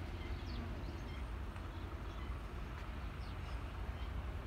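Birds calling with scattered short chirps over a steady low rumble.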